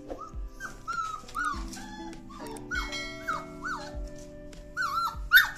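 30-day-old Doberman puppies whining and yelping over and over: short high cries that rise and fall, with one sharp, loud yelp near the end. They are crying to be let out past a low barrier they have not yet learned to climb over. Background music with a steady beat plays underneath.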